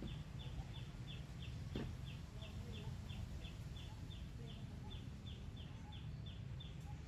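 A small bird repeating a short, high chirp about three times a second, stopping near the end, over a steady low background rumble.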